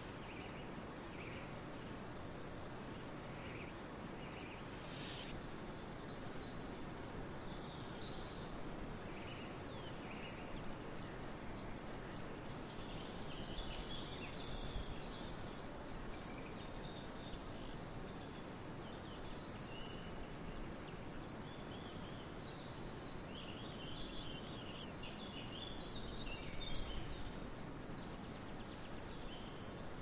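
Birds chirping and calling now and then over a steady rushing background noise, with two thin, high held notes, one about ten seconds in and one near the end.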